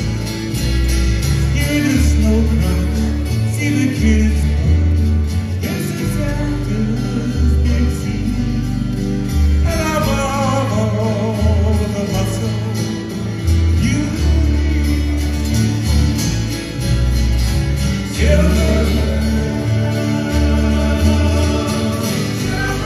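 Live acoustic band: men's voices singing a slow Christmas song over strummed acoustic guitars and a deep bass line.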